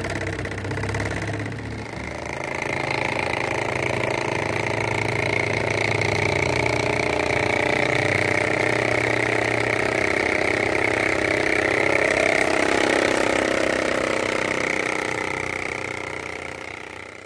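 Diesel engine sound of a miniature rice-field hand tractor modelled on a Dongfeng 24 hp diesel. It chugs, is revved up about two seconds in, runs on steadily, and fades out near the end.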